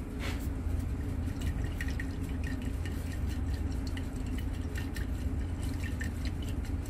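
Glass Erlenmeyer flask of reaction mixture swirled by hand to mix it: liquid sloshing inside with many light glass ticks, over a steady low hum.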